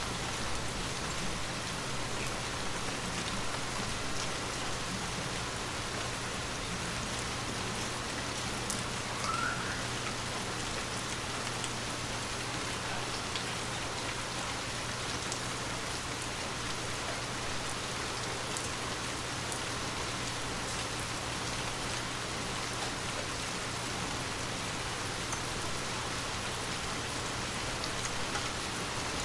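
Gentle, continuous rain falling on a window, a steady hiss with scattered drops ticking sharply against it.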